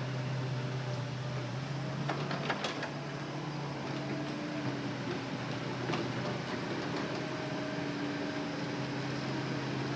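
Diesel engine of a Hitachi Zaxis excavator running steadily with a constant low hum. A few sharp knocks and clatters come about two to three seconds in and again around six seconds.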